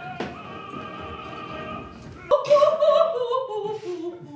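Operatic singing: a held note, then about two and a half seconds in a louder phrase sung with vibrato that steps downward in pitch.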